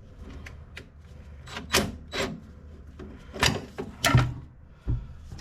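A string of sharp metal knocks and clanks, about seven over five seconds, from parts and tools being worked by hand during a car's rear suspension install.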